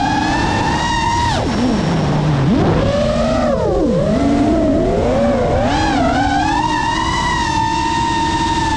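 A 5-inch FPV quadcopter's motors and propellers whining, heard from its onboard GoPro. The steady whine drops sharply to a low drone about a second in as the throttle comes off, then shoots back up. It wavers up and down with quick throttle changes and settles to a steady whine again near the end.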